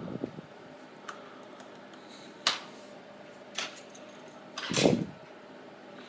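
Small hard clicks and taps of tools and parts being handled on the bench while an iPod Touch 4G is reassembled, a few scattered clicks, then a louder, duller knock near the end.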